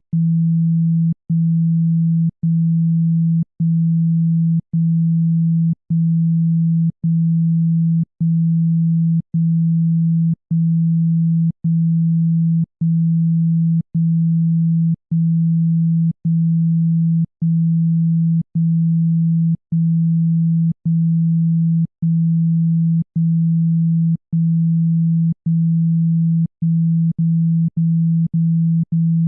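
Low, steady pure tone of a speaker-cleaning sound, played to shake water and dust out of a phone speaker. It pulses with a brief cut-out about once a second, and near the end the cut-outs come faster, about twice a second.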